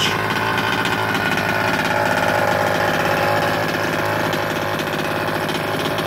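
Small two-stroke gas engine of a large-scale RC car idling steadily during break-in heat cycles.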